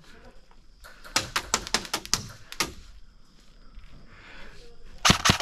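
Airsoft guns firing: a rapid string of about nine shots over a second and a half, then a louder burst of shots near the end.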